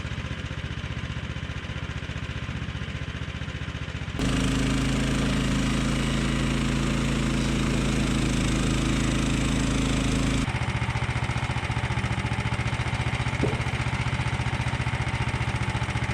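Small gas engine of a Frontier portable bandsaw mill running steadily while squaring a maple log. The sound turns abruptly louder and deeper about four seconds in and switches back just as abruptly about ten seconds in.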